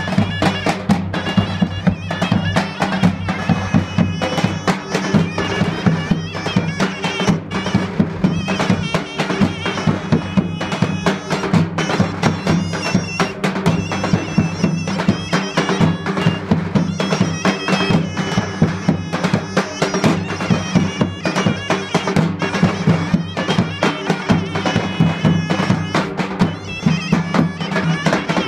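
Davul and zurna playing Turkish folk music together: the zurna's melody held over the steady beat of two davul bass drums.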